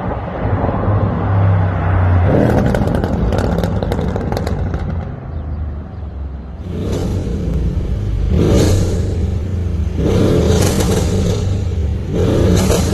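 Mercedes-AMG S63 Coupe's twin-turbo V8, on a Stage 1 tune with downpipes, running with a rapid run of exhaust crackles and pops a couple of seconds in. Later it is revved in four blips about two seconds apart.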